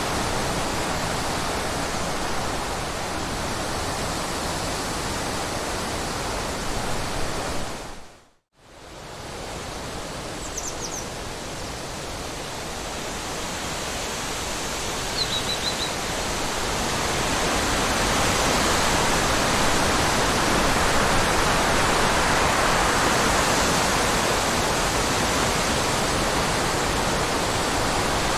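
Steady rushing water noise. It cuts out briefly about eight seconds in and comes back, with a couple of faint, short, high chirps a few seconds later.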